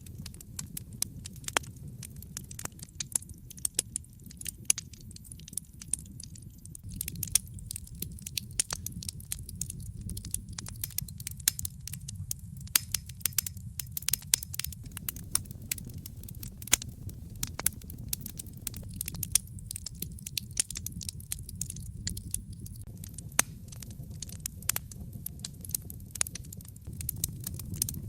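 Wood fire crackling and popping, with irregular sharp pops over a steady low rumble of the burning fire.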